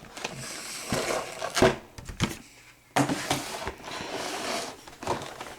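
Packaging of a trading-card collection box being handled and opened: rustling of cardboard and plastic with several sharp clicks and knocks, a brief lull, then another knock about three seconds in.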